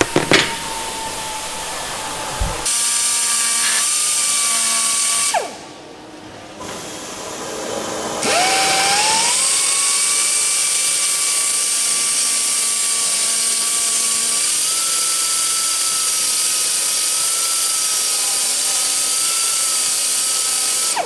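Pneumatic die grinder running with a high whine and a hiss of exhaust air as it radiuses the edges of holes in an aluminium rib. It stops about five seconds in, spins up again with a rising whine a few seconds later, then runs steadily, its pitch stepping up slightly about halfway through.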